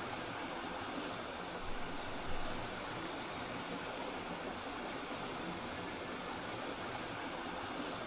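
Spring water flowing in a small stream: a steady rush, with a couple of slightly louder splashes about two seconds in.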